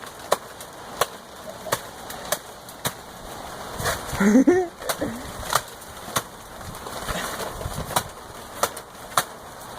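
Repeated chopping strikes into a soft banana tree trunk: a dozen or so sharp hits, roughly one every half second to second, with a brief shout about four seconds in.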